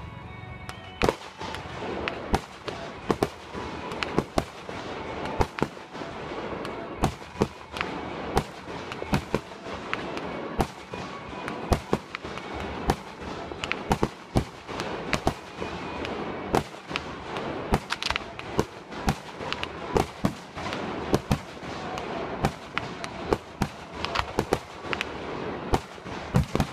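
Fireworks display: aerial shells bursting in a rapid, irregular string of sharp bangs, about two a second, with a steady hiss between them.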